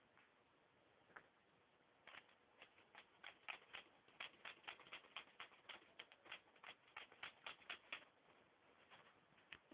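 Samoyed puppy gnawing on a toy: a quick run of small sharp clicks and ticks, several a second, from about two seconds in until about eight seconds, with a few scattered clicks before and after.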